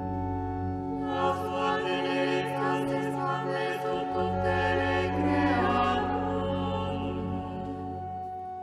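Sung psalm chant: voices chanting over long, steady held chords, with the singing strongest from about one to six seconds in.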